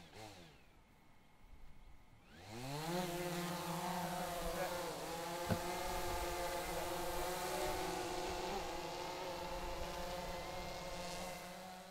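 Small quadcopter drone's electric motors and propellers spinning up about two and a half seconds in, rising quickly in pitch as it lifts off, then a steady buzzing whine as it hovers and flies away.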